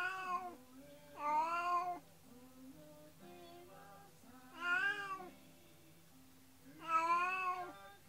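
A domestic cat meowing in four long, plaintive cries, each rising and then falling in pitch, spaced a couple of seconds apart. It is a cat's distress crying at being left alone without its companion. Quiet background music plays under the cries.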